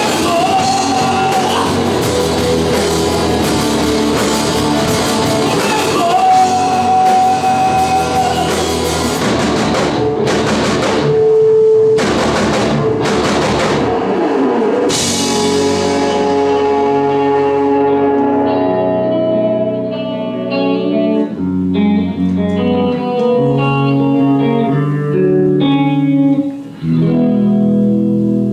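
Live rock band playing loud: electric guitar holds long lead notes over drums and bass, then the band hits a run of accented stops with a cymbal crash about halfway through. After that the drums drop out and guitar and bass let slower chords ring.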